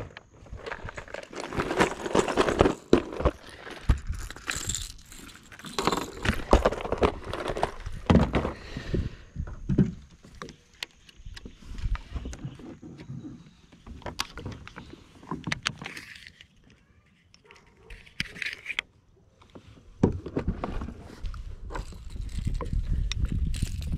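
Kayak paddle strokes in the water, then fishing tackle handled close to the microphone: irregular clicks, knocks and rustling, with a quieter stretch about two-thirds of the way through.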